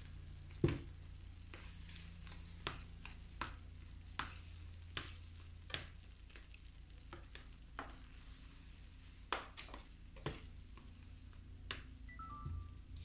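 A black spatula stirring and pressing thick semolina halwa in a stainless steel frying pan, knocking and scraping against the pan about a dozen times at irregular intervals, the loudest knock about half a second in. Faint sizzling of the cooking semolina over a low steady hum.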